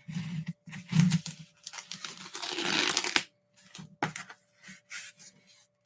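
A shipping package being torn open by hand: paper and packing tape ripping and crinkling in short bursts, with a longer rip about two to three seconds in, and a few sharp clicks.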